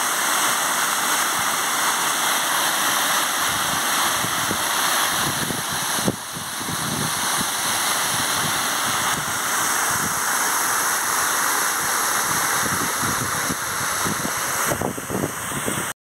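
Small waterfall: water pouring over a rock ledge in a steady, even rush.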